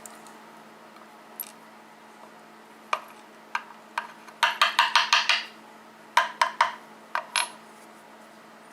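Sharp small metal taps and clicks as the padlock's lock core is worked to get its last pin stacks out: a few single taps, then a quick run of about eight, then three more and two more.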